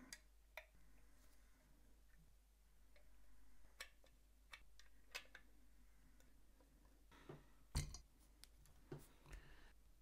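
Faint scattered clicks and handling noise from fingers working a Blue Yeti USB microphone's mute button and gain knob, with a louder knock about eight seconds in as the mic body is handled.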